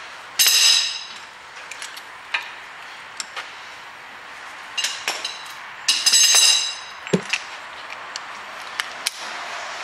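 Air impact gun firing in short bursts on tight suspension strut-to-hub fasteners: a high-pitched rattling burst about half a second in, a shorter one near five seconds and a longer one about six seconds in. Light metallic clicks and a dull knock come between the bursts.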